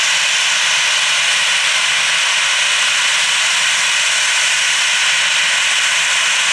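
Boeing 737-700 jet engines (CFM56-7B turbofans) running, heard as a steady rushing noise that holds even throughout.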